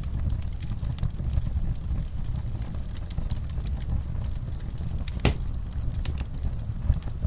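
Wood fire burning in a fireplace: a steady low rumble of flames with scattered small crackles and one sharper pop about five seconds in.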